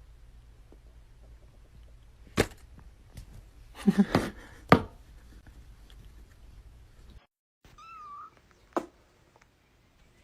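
A cat meowing, with a few sharp knocks in between; one short, high, wavering meow comes near the end.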